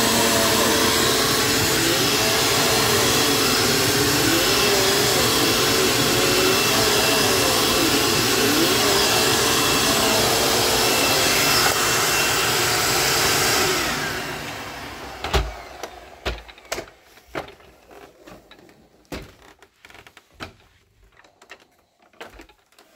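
Dirt Devil Featherlite bagged vacuum cleaner running loudly, its motor pitch wavering. It is switched off about 14 seconds in and winds down, followed by a string of scattered clicks and knocks.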